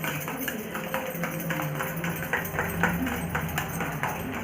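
Background music with a steady light percussive beat, about two taps a second.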